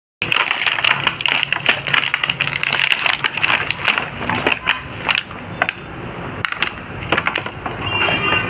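Crackling and crinkling of plastic being handled, with many sharp clicks and taps, dense for the first five seconds and then more scattered. Steady musical tones come in near the end.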